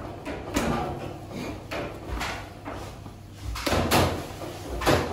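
Gloved hands kneading and pressing a crumbly mixture on a metal baking tray, the tray knocking and rattling on the table in irregular strokes, loudest near the end.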